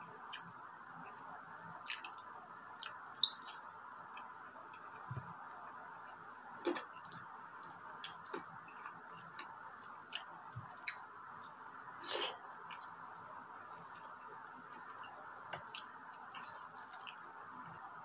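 Close-up hand-eating sounds: saucy rice and stewed meat squished between the fingers, with scattered short wet clicks and mouth smacks from chewing, the sharpest about three seconds in. A steady faint hum runs underneath.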